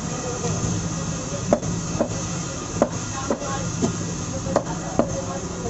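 Cleaver chopping beef on a wooden stump chopping block: about seven sharp knocks, unevenly spaced, beginning about a second and a half in, over a steady background noise.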